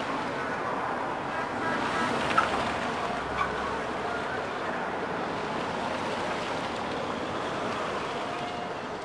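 Steady roar of a large crowd lining the road, with one brief sharper sound about two and a half seconds in.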